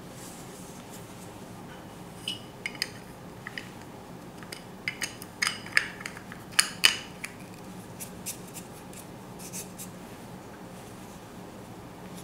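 Light clicks, taps and rubbing as hands handle a Nikon AF-S Nikkor 85mm f/1.4G camera lens. The clicks are scattered irregularly through the middle, and the sharpest come a little past halfway.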